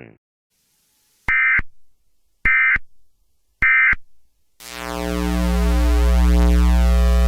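Emergency Alert System end-of-message data tones: three short identical bursts of warbling data sound, about a second apart, closing the alert. About two-thirds of the way in, a loud, low synthesizer drone swells in and holds, its upper notes changing once.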